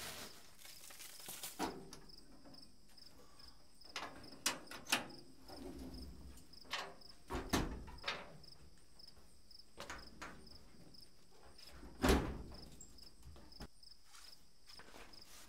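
Scattered metal knocks and clanks from handling the rusty 1956 Willys Jeep CJ-5 on its trailer and hooking a tie-down strap to it. The loudest is a single heavy clank with a thud about twelve seconds in. A faint, evenly pulsed high insect chirp sounds behind them.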